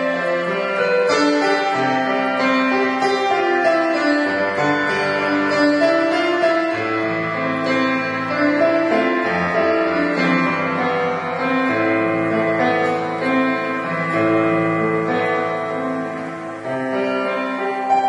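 Roland E-50 arranger keyboard played with both hands: a slow melody over long held chords.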